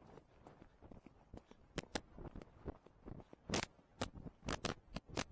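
A horse chewing at rest: an irregular run of crisp crunches and clicks, closer together and louder in the second half.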